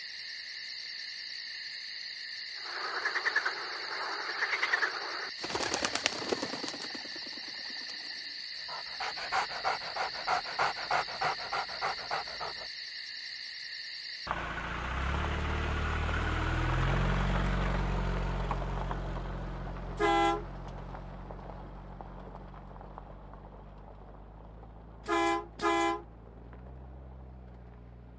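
Crickets chirring with a steady high ring for about the first half, then a vehicle engine rumble swells in and fades, and a car horn toots once and then twice in quick succession near the end.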